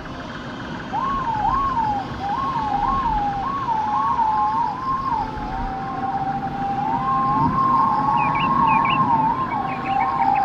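Siren sounding in quick rising-and-falling sweeps, then settling into a two-tone high-low alternation about seven seconds in, over a low rumble, with a few short high chirps near the end.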